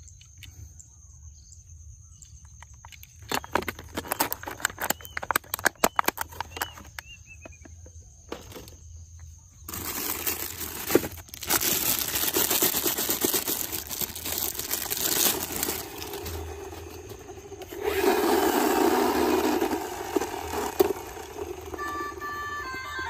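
Toy cars being handled: a run of sharp plastic clicks and clatter, then a long rushing noise and a louder whir. A short electronic jingle starts near the end.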